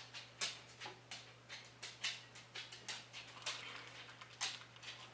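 Marinated venison strips going into hot oil in a pan, the oil crackling and spitting in short irregular pops, a few a second.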